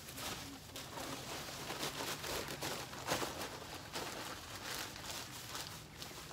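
Wood shavings being shaken out of a plastic bag into a chicken coop, with the bag crinkling and rustling as it is handled and gathered closed: a run of soft, irregular scratchy rustles.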